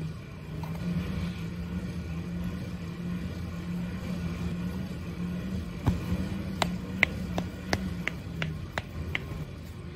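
A steady low motor hum, with a run of about eight sharp clicks starting about six seconds in.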